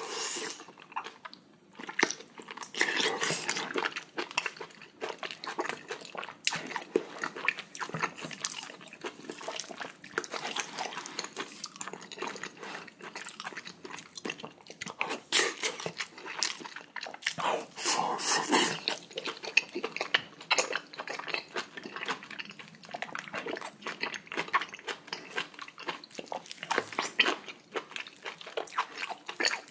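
Close-miked chewing of fatty whole beef large intestine (daechang) in braised kimchi: biting, then many small wet smacks and clicks of the mouth, with a few louder spells.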